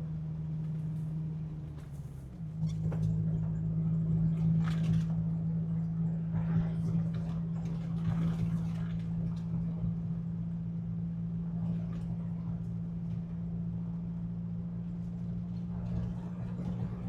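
Jeep Wrangler TJ engine running steadily while driving on a snowy road, heard from inside the cab. About two seconds in the engine note dips briefly and then settles into a new steady pitch.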